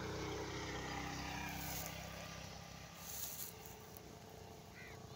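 A motor engine running steadily, louder for the first two seconds or so and then fading, with a short high call near the end.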